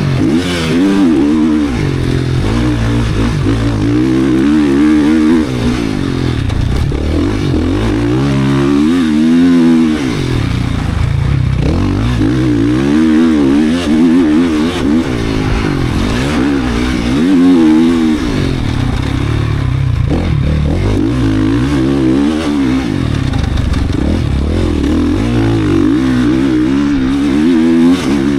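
GasGas 450 motocross bike's single-cylinder four-stroke engine, a newly built race engine, revving hard and backing off over and over as it is ridden. Its pitch climbs and falls every few seconds.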